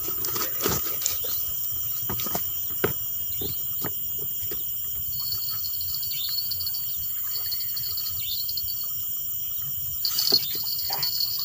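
A steady high-pitched chorus of night insects, with scattered small clicks and knocks, and a short cluster of louder knocks about ten seconds in.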